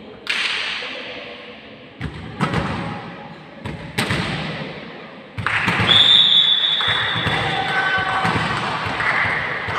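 Volleyball being struck and bouncing, a series of sharp thumps that ring in a sports hall, with a single high, steady whistle about six seconds in.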